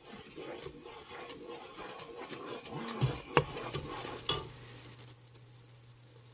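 Wooden spoon stirring boiling sugar syrup in a metal pot, scraping with bubbling underneath. The syrup is nearly at 235°F, the soft-ball stage for bee fondant. A few sharp clicks come a little past halfway, then the stirring dies down and a low steady hum carries on.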